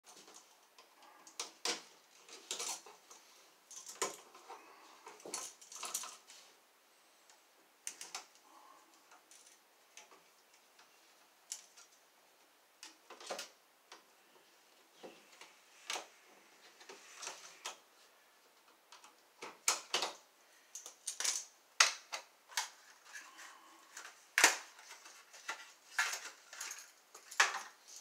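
Screwdriver clicking and scraping on the metal screws and mounting strap of a wall outlet: a scatter of small metallic clicks and clinks, coming thicker in the last third.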